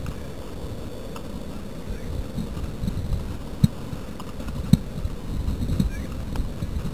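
Wind rumbling on the microphone, with dull thuds from a cantering horse's hooves on the sand arena. The thuds grow as the horse comes closer, the loudest about three and a half and four and a half seconds in.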